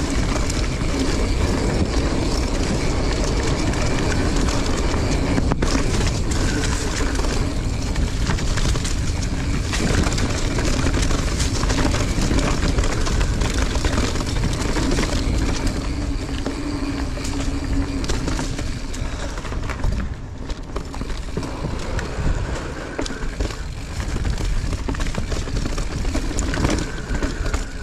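Mountain bike ridden over a dirt trail: a steady rushing, rattling noise of wind on the microphone, tyres on dirt and the bike's frame and chain, easing briefly about twenty seconds in.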